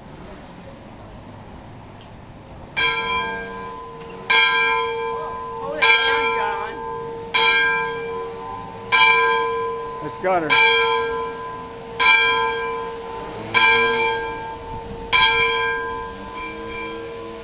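Bell of Milwaukee Road 0-6-0 steam locomotive #1416, rung by hand with its cord: nine strokes, starting about three seconds in and coming about one and a half seconds apart, each ringing on into the next.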